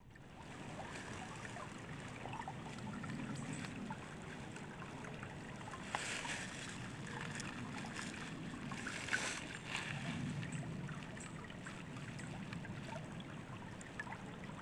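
Shallow rocky stream running and gurgling close to the microphone, with a hand splashing in the water, loudest briefly about six and nine seconds in.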